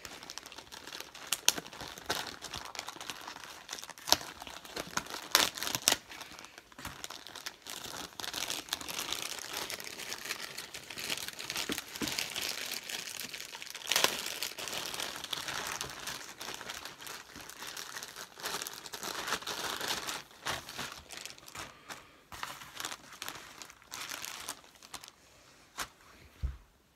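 Clear plastic lure packaging bag being pulled open and handled, crinkling steadily with sharp crackles and a few louder snaps. It goes quiet just before the end.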